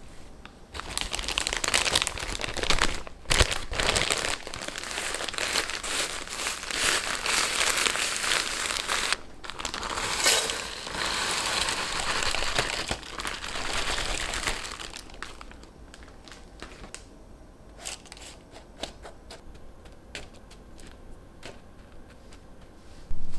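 Plastic packaging crinkling and rustling as it is handled, dense for the first two thirds, then giving way to a few scattered small clicks and taps.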